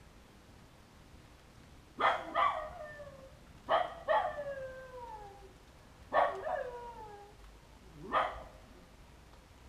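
A dog left alone by its owners barking and howling: about seven yelping calls in pairs, starting about two seconds in, each beginning sharply and trailing off into a falling howl.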